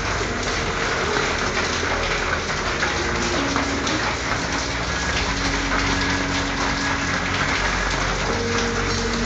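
Steady rain falling on a corrugated tin roof, a dense even patter with no break.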